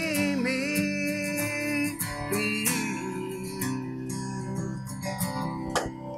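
Acoustic guitar strummed under a man's long held sung note, the closing bars of a country ballad; the music fades away near the end.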